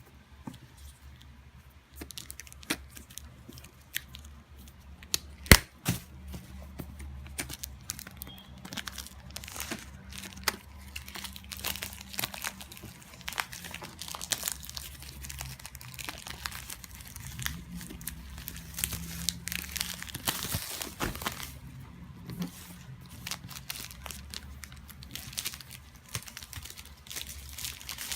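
Headphone packaging being opened and handled: plastic and cardboard crinkling and tearing, with scattered clicks and knocks and one sharp knock about five and a half seconds in.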